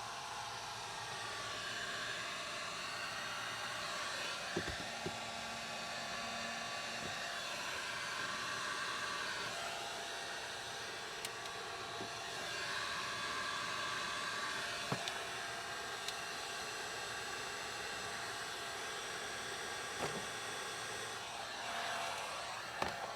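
Heat gun blowing steadily, its tone shifting a few times, with a few light knocks.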